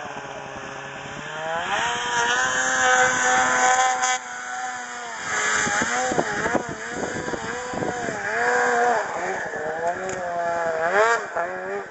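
Two-stroke Polaris RMK snowmobile engines revving hard on a hill climb, their pitch rising and falling with the throttle. Loudest from about two to four seconds in, when the throttle is cut suddenly, and again near the end.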